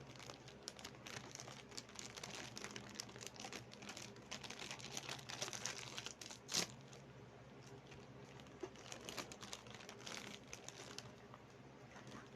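Plastic snack wrapper of a Gardenia muffin crinkling and crackling as it is handled, with one sharper, louder crackle about six and a half seconds in.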